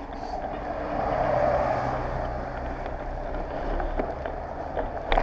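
Steady riding noise of a touring bicycle rolling along a road, swelling about a second in, with a sharp knock just before the end.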